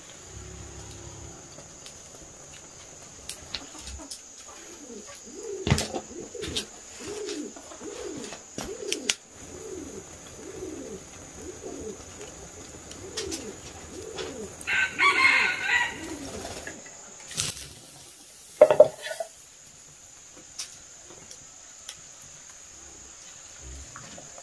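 Chickens calling: a run of low, repeated clucks, then a louder, longer call about fifteen seconds in and a short loud call a few seconds later.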